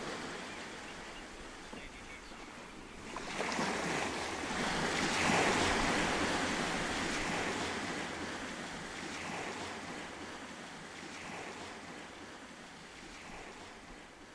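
Small waves breaking and washing over a pebble beach, one swell building about three seconds in and loudest a couple of seconds later, then fading away with smaller washes.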